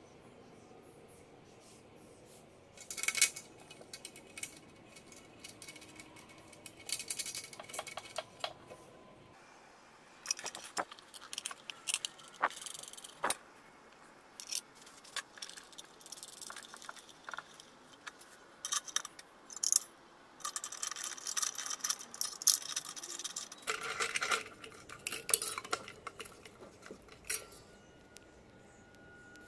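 Small screws and a cut tin can clinking and scraping against a metal frying pan as they are handled and fitted: irregular sharp metallic clinks, some with a short ring.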